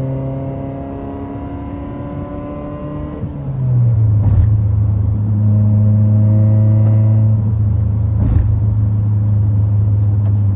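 1992 Honda Civic's carbureted four-cylinder engine running through a straight-pipe exhaust. It creeps up slightly in pitch at first, then gets much louder about three and a half seconds in and holds steady, with two short cracks along the way.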